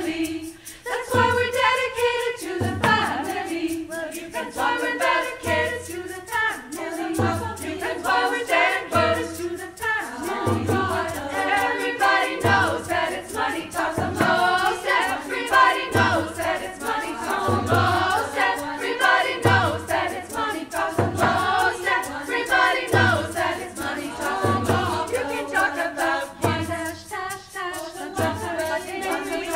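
Choir of women's voices singing in harmony, accompanied by a frame drum keeping a slow, steady beat of about one low stroke every second and a half to two seconds.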